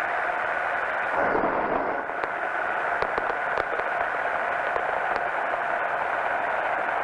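Powered parachute engine and propeller droning steadily, heard thin and narrowed through the pilot's headset intercom. There are a few faint ticks about three seconds in.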